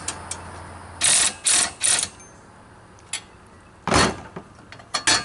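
A wrench tightening a nut and bolt on a bead breaker assembly: three short ratcheting bursts about a second in, then a sharp metal knock near four seconds. The tightening is stopped short of overtightening.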